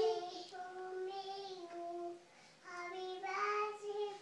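A young child singing wordlessly in long held notes, pausing briefly a little after two seconds in and then going on.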